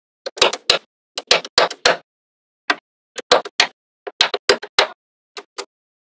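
Small magnetic balls clicking as slabs of them snap onto a wall built of the same balls: sharp clacks in quick clusters of two to four, with short silent gaps between.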